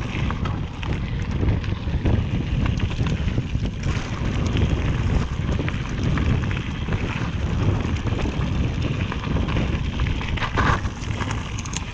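Wind buffeting an action camera's microphone while a mountain bike rolls fast down a forest singletrack, with a steady rumble from the tyres on the dirt and frequent clicks and rattles from bumps.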